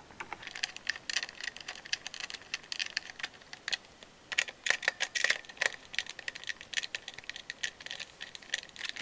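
Hand screwdriver turning a small screw into a floppy drive's case: a fast run of small clicks and scrapes, sped up.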